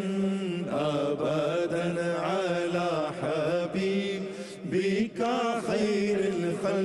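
Background vocal music: a solo voice chanting a wavering melody over a steady low drone.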